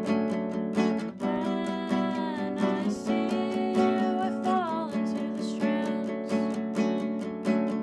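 A woman singing to a strummed classical nylon-string guitar, the strums even at about four a second. Her voice comes in about a second in with long held notes and falls away near five seconds while the guitar keeps going.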